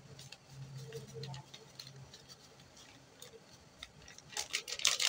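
Light scattered ticks and taps from a bait container being handled and emptied into a bait mix. About four seconds in they turn into a dense rattling rustle.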